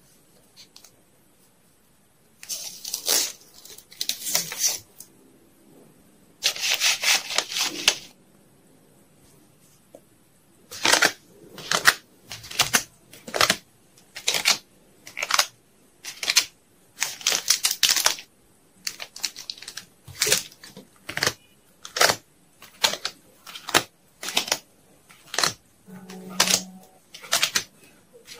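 Packing materials being handled: a few longer rustling, scraping stretches, then a steady run of short crisp scrapes, a little more than one a second.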